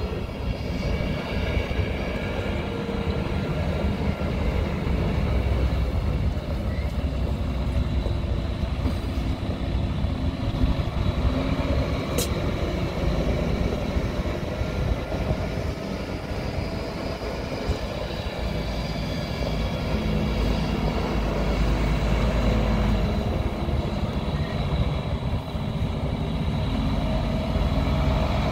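2012 International 8600 tandem-axle truck tractor driving at low speed, its diesel engine running steadily with a low rumble. The sound gets somewhat louder in the last third as the truck comes back toward the listener.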